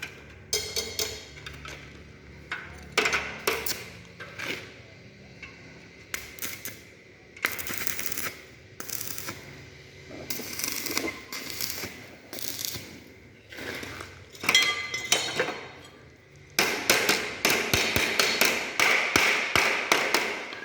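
Arc welding: the arc crackling and sputtering in short runs of a second or two with pauses between, then a longer unbroken run of about four seconds near the end.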